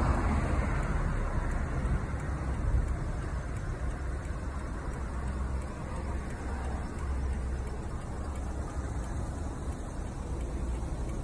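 Steady road traffic noise: a low, even rumble with a faint hiss and no distinct events.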